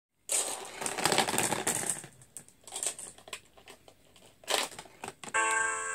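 Marbles rattling and rolling down the tubes of a homemade cardboard-tube marble run: a dense clatter for about two seconds, then scattered clicks and one short burst. A tinkling melody starts near the end.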